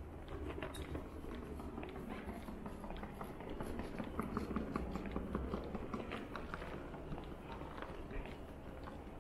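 Airport terminal ambience: a steady low hum of the hall under a run of footsteps clicking on a hard polished floor, busiest in the middle. A faint murmur of distant voices swells about midway.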